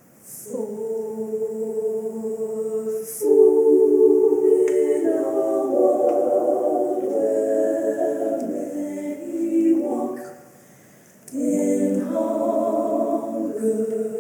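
All-female vocal ensemble singing a cappella in held chords, breaking off briefly about ten seconds in and then coming back in.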